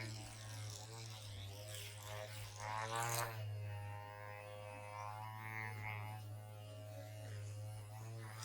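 Background music: a steady low drone under a melody whose notes glide up and down, swelling about three seconds in.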